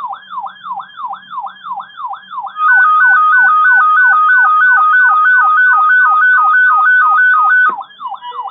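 Weather radio alert alarms going off. One radio repeats a quick falling sweep about three times a second, and about two and a half seconds in a second radio joins with a louder, fast high-low two-tone warble that stops shortly before the end. The alarms are triggered by an incoming NOAA Weather Radio alert, here ahead of a tornado watch.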